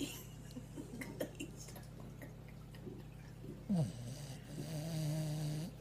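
Sleeping beagle snoring: a short falling snort about two-thirds of the way through, then a long steady snore lasting about a second and a half near the end.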